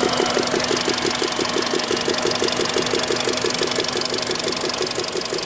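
Warm car engine idling with a rapid, even ticking, about eight taps a second: a hydraulic valve lifter knocking when hot, which the owner takes for an exhaust-side lifter.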